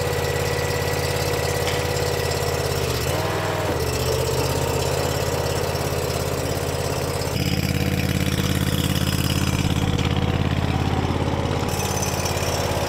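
The 25-horsepower two-cylinder engine of a ClayBot UTC remote target carrier running at a steady idle, becoming louder about seven seconds in.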